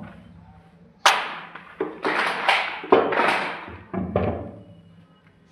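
A run of about six sharp, noisy knocks, each with a short hissing tail, over about three and a half seconds.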